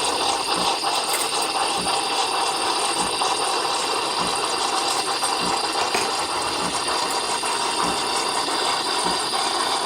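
A kitchen appliance running steadily with a rattle, and a soft low thump repeating about every 0.6 seconds.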